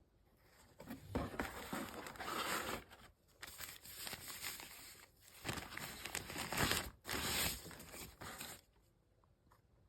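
Packaging being handled during an unboxing: paper or plastic wrapping rustling and crinkling in irregular bursts with small clicks, from about a second in until nearly the end.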